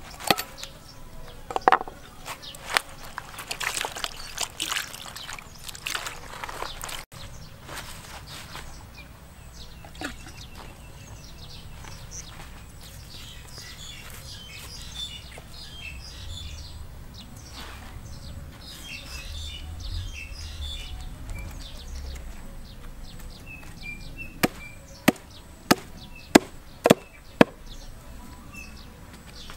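A blade scraping and cutting at a lizard carcass, with scattered clicks, then faint bird chirps. Near the end come six sharp chops of a knife on a wooden block, about two a second.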